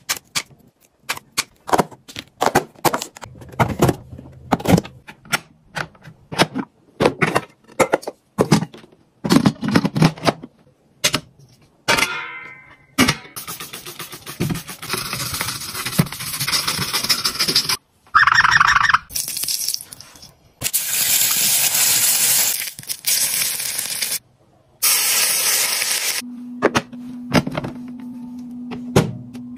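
Kitchen chores in quick succession. First a run of sharp clicks and snips as scissors cut grapes off the bunch. Then long hissing stretches with short breaks as a gas hob is cleaned with foam cleaner, with a brief squeal in the middle, and near the end a steady hum as a microwave oven runs.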